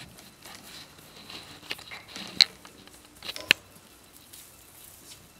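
Persian kittens scrambling and playing on a metal-framed cat hammock: scattered soft rustling and tapping, with two sharp clicks about a second apart near the middle.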